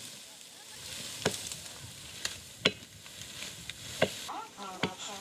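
Hand tool strikes in dry maize stalks: about five sharp chops at uneven intervals over a steady hiss. A few short high chirps come in near the end.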